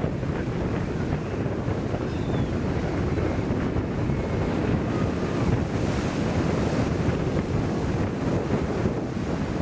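Ocean surf breaking on a sandy beach, with wind buffeting the microphone: a steady, dense wash of noise, heaviest in the low end.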